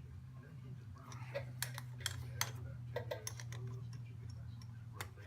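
A 1/2 inch wrench clicking and clinking on the shifter linkage bolts as they are tightened, with an irregular scatter of sharp metal clicks. A steady low hum runs beneath.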